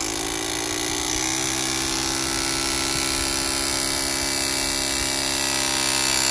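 Battery-powered hydraulic press tool with a 22 mm jaw running as it crimps a copper press fitting onto pipe: a steady motor whine that shifts slightly in pitch about a second in and grows a little louder near the end as the jaw closes.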